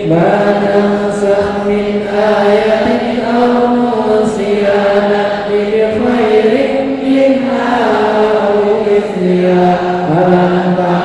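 A single voice chanting Quran recitation in long, drawn-out melodic phrases, holding notes for seconds at a time and sliding between pitches.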